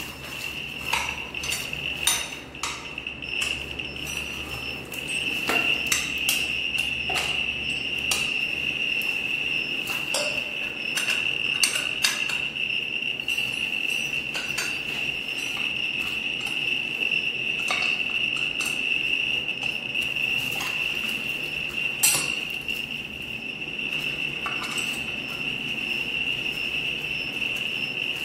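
Scattered metallic clicks and taps of a hand tool on the steel lid of an Ir-192 radiography source transport container as its four cap screws are removed, with two sharper knocks near the middle and about three quarters of the way in. A steady high-pitched electronic tone sounds throughout.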